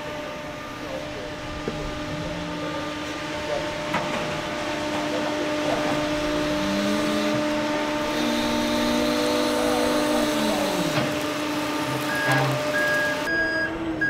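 John Deere 310 X-Tier battery-electric backhoe working, with no diesel engine running: a steady electric hum and whine that rises and then falls back in pitch as the loader moves through the middle. It is quiet for a backhoe. A few short beeps sound near the end.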